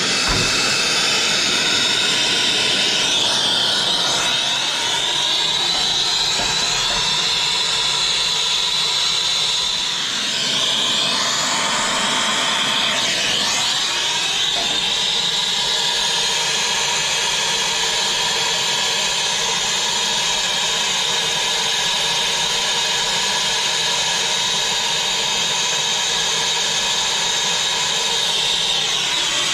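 Hose-fed brazing torch flame burning steadily with a loud, even hiss while a copper pipe coupling is brazed. The hiss dips briefly about ten seconds in.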